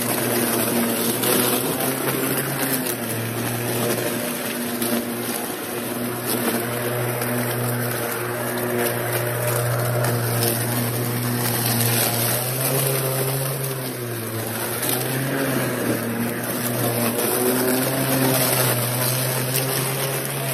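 Ryobi 40-volt brushless cordless push mower running as it mows over grass and dry leaves: a steady electric motor and blade hum that dips briefly in pitch about two-thirds of the way through.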